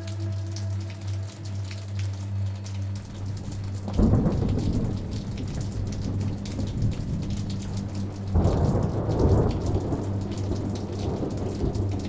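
Steady rain with two rolls of thunder, the first about four seconds in and the second about eight seconds in, over a low steady drone.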